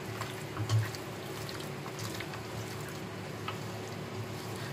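A hand squishing and turning marinated chicken pieces coated in fried-chicken mix in a metal bowl: soft wet squelches and small clicks, with one louder low thump just under a second in, over a steady low hum.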